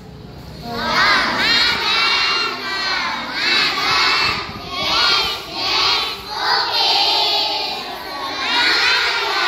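A class of young children shouting together in short phrases, many high voices at once. It starts about a second in.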